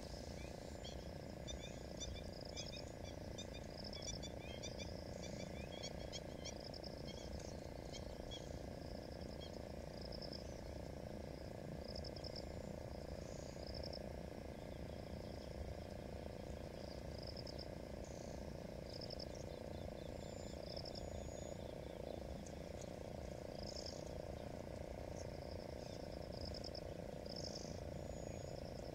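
Wetland animal chorus: short, high calls repeating every second or so, with many small chirps mixed in over the first several seconds, over a steady low rumble.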